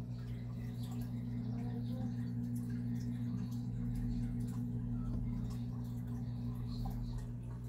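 Steady low electrical hum with a few faint ticks over it.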